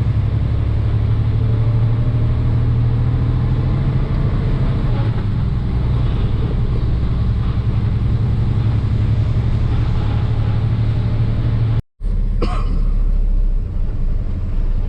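Log truck's diesel engine running steadily while driving, a loud, even low drone with road noise. The sound cuts out for a moment near the end, then the same drone resumes.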